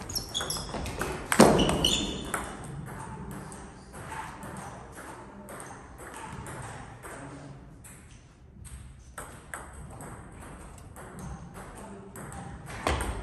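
Celluloid-type table tennis ball clicking off rubber-faced bats and the table in a rally, with one louder thump about a second and a half in. Play stops for several seconds, then the clicks start again near the end.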